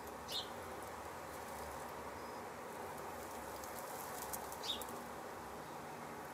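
Steady faint hum in a henhouse nest box, with two short high chirps: one just after the start and one about four and a half seconds in.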